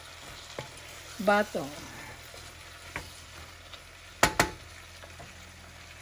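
Sliced squash and long beans sizzling in hot oil and shrimp paste as they are stirred in a pot with a wooden spatula. A few light knocks of the spatula against the pot, with two sharp knocks close together about four seconds in.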